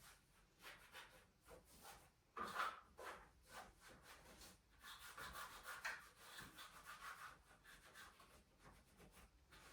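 Faint rubbing and rustling as things are handled while tidying, with no vacuum running. There is a louder scrape about two and a half seconds in and a longer stretch of rubbing from about five to seven seconds in.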